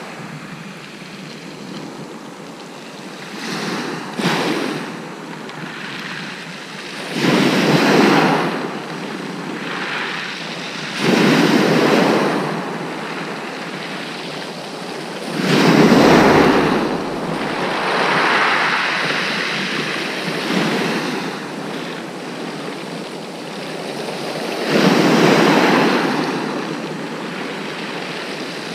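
Sea waves breaking on a shingle beach: a steady wash with about six louder surges a few seconds apart.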